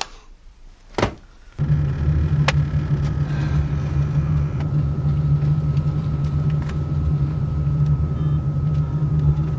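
Two short clicks, then a steady low vehicle rumble that starts abruptly about a second and a half in and runs on evenly.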